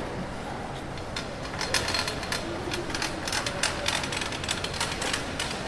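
Wheeled luggage rattling over a tiled floor as it passes close by: a rapid, irregular clatter of clicks that starts about a second in and fades out near the end, over a steady hall hum.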